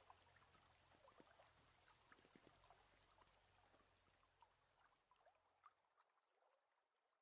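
Near silence: faint room tone with a low hum that stops about six seconds in, and a few tiny clicks.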